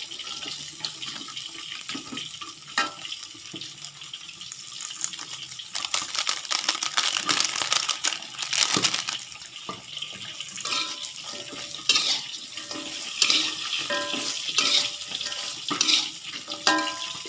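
Tofu pieces sizzling in a hot wok while a metal spatula stirs and scrapes them around the pan, with repeated scrapes and knocks of the spatula against the wok over a steady frying hiss.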